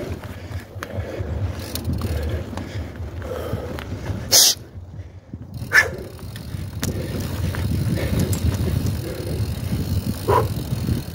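Mountain bike ridden over a rough dirt trail, the tyres and frame giving a steady rumble with scattered rattles and knocks. A sharp, loud clack comes about four and a half seconds in, followed by a brief lull.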